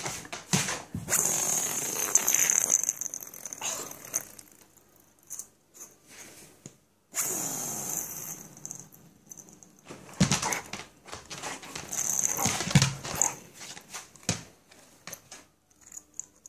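Small plastic spinning top whirring on a hard floor, set spinning three times, each spin lasting a couple of seconds, with sharp knocks between the spins.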